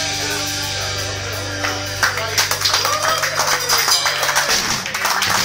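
A rock band's last chord, bass and electric guitar, held and ringing out, then audience applause with a few cheers breaking in about two seconds in as the song ends.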